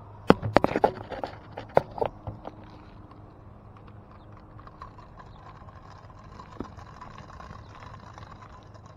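A quick run of sharp knocks and clacks in the first two seconds or so, from the measuring wheel and its metal pole being handled on the asphalt-shingle roof. Then only faint shuffling and a faint steady hum.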